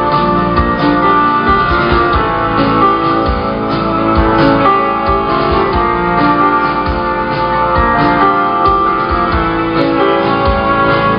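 Live band music, loud and continuous: a bowed violin over held keyboard-like chords, guitar and low drum hits.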